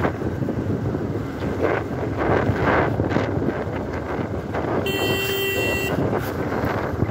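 Wind buffeting the microphone on a moving motorcycle, over the bike's running engine. About five seconds in, a steady tone sounds for about a second.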